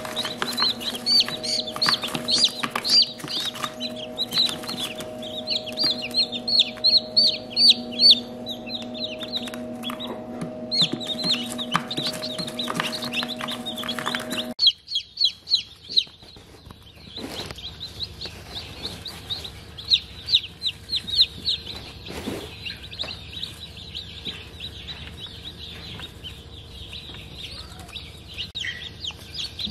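Newly hatched Ayam Cemani chicks peeping constantly, many short high-pitched peeps overlapping. A steady hum sits under them in the first half and stops abruptly about halfway through.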